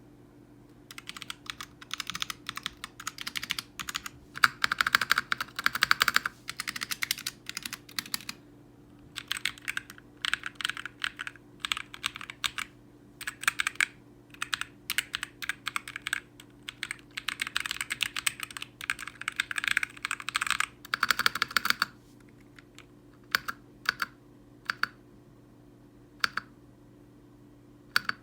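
Typing on a K61 custom mechanical keyboard fitted with tactile Akko purple and Gateron brown switches: fast runs of keystrokes with short pauses, then from about 22 seconds in single keys pressed one at a time, about once a second.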